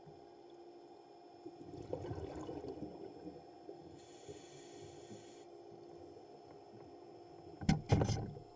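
Underwater recording from a scuba dive under a steady hum: a gurgle of regulator exhaust bubbles, then a hiss of a breath drawn through the regulator. Near the end come a few sharp knocks, as a great hammerhead shark bumps against the camera.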